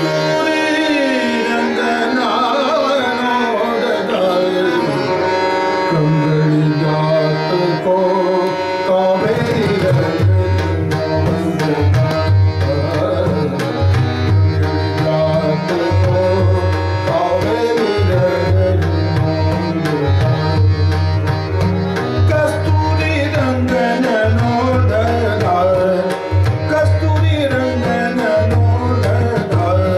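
Hindustani vocal music: a man sings gliding, ornamented lines over a harmonium, and the tabla joins in about ten seconds in with quick strokes and a deep pulsing bass drum.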